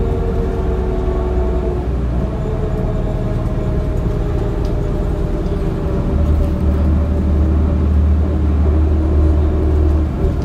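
Cabin sound of a 2004 New Flyer D40LF diesel transit bus under way, its Cummins ISL engine and drivetrain running, with a whine that slowly falls in pitch. A heavier low drone comes in about six seconds in.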